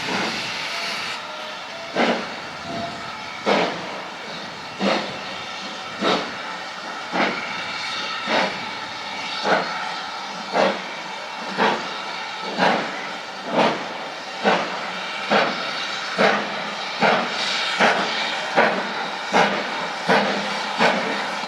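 GWR Manor Class 4-6-0 steam locomotive 7812 starting away with a train. Steam hisses at first, then sharp exhaust beats begin about two seconds in and quicken steadily as it gathers speed, with hissing continuing between the beats.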